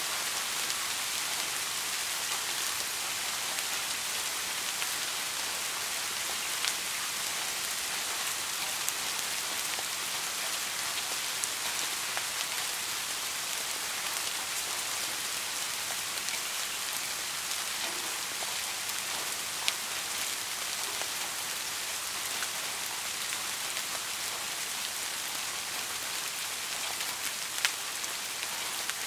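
Soft, steady rain falling, a dense even hiss of many small drops, with a few louder single drops ticking now and then.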